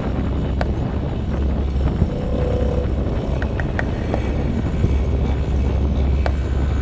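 Motorcycle riding at a steady speed: a low, steady engine and road rumble with wind rushing over the microphone.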